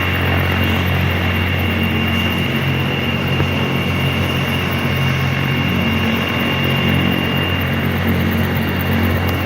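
Medical helicopter running steadily: the rotor's low drone with a constant high turbine whine over it, no change in pitch.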